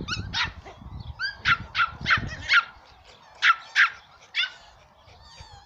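A dog yapping: a run of short, high barks, in a quick series early on and another pair around three and a half seconds in, then a last one before it goes quiet.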